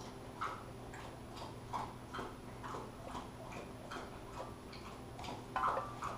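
Steady, even ticking, a little over two ticks a second, over a faint low hum.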